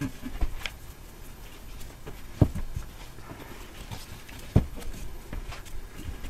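Hand-winding fibreglass heat wrap around an exhaust pipe held in a vise: rustling of the wrap and gloves, with scattered knocks and taps as the roll and pipe are handled, two louder knocks about two and a half and four and a half seconds in.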